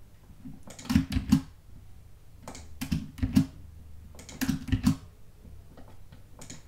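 Computer keyboard keys pressed in short bursts of two to four quick strokes, with a pause of a second or two between bursts.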